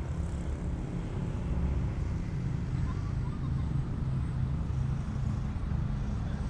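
Steady low drone of a radio-controlled Ugly Stick model airplane flying overhead, its motor and propeller running at part throttle.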